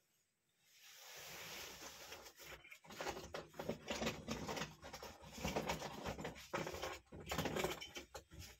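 Irregular rustling and light clattering of circuit boards and electronic scrap being handled and rummaged through, starting about a second in.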